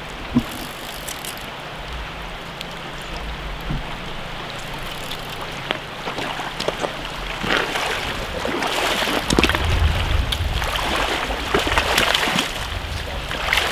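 Shallow river current rushing over stones, steady at first and growing louder and more uneven from about halfway through, with scattered short clicks.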